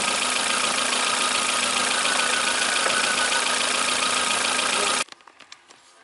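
Car engine idling steadily with a loud, even running noise, cutting off abruptly about five seconds in to a much quieter stretch.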